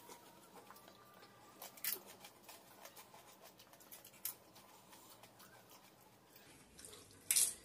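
Soft, crisp crackling and crunching of hollow fried pani puri shells being cracked open with fingers and bitten, with a few sharper cracks, the loudest near the end.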